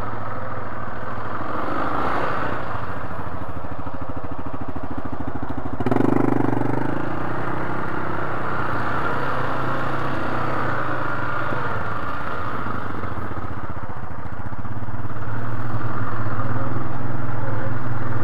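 ATV engine running steadily at low speed while crawling a rough trail, growing louder about two-thirds of the way through as more throttle is given.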